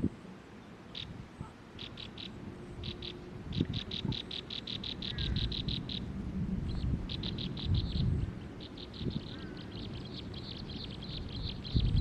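A bird calling in rapid trains of short, high, evenly repeated notes, about six a second. The runs start as a few scattered notes and grow into longer continuous series, over a low rumbling background noise.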